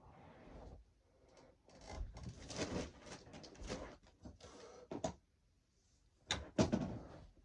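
Rummaging and handling noises: rustling and clattering with several knocks, the loudest being two sharp knocks close together near the end.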